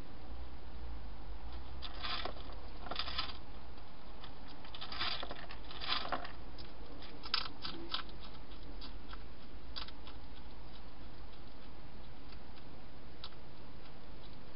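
Wild hedgehog crunching and rustling at close range: a run of short, crackly crunches in bouts, thickest in the first half and thinning out toward the end.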